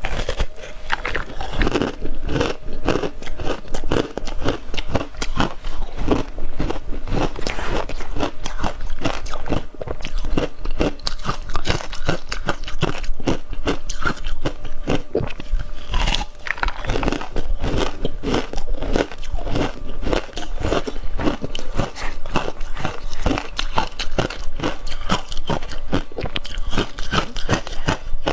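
Close-miked ice being bitten and chewed: a dense, irregular run of sharp crunches and cracks as the ice breaks between the teeth.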